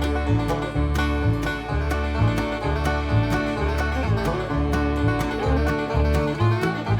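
Upbeat bluegrass-style background music with plucked banjo and guitar over a steady bass and beat.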